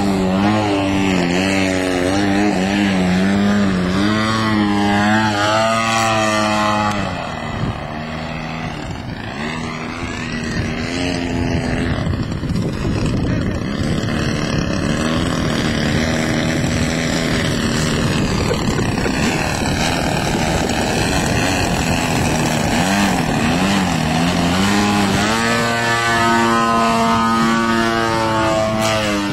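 DLE 55 single-cylinder two-stroke gasoline engine of a 3D aerobatic RC biplane, swinging a propeller in flight. It runs loud, its pitch wavering up and down, for the first several seconds. About seven seconds in it drops to a quieter, less tonal drone for much of the time, then comes back loud with wavering pitch near the end.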